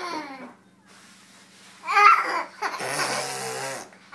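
Baby laughing and squealing in short high-pitched bursts: one falling squeal at the start and another about two seconds in, followed by about a second of hoarse, breathy vocal sound.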